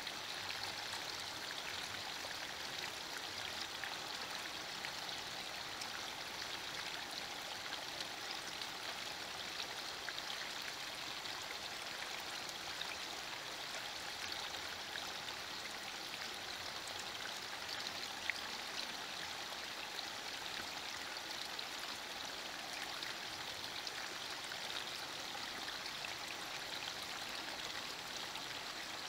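Steady rain falling: an even hiss of fine patter that never lets up, with one sharper drop a little past the middle.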